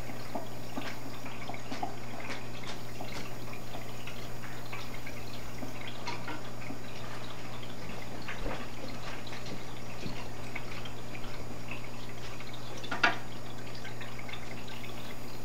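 Aquarium filter running: water trickling and dripping back into the tank in small irregular splashes over a steady low hum, with one louder plop about two-thirds of the way through.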